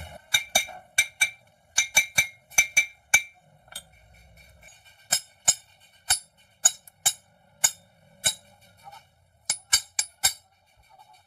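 A hammer striking steel again and again, each blow ringing, in two runs with a short pause between.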